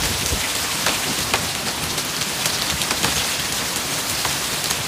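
Heavy rain mixed with hail coming down: a steady, dense hiss of falling water with many sharp ticks of hailstones striking.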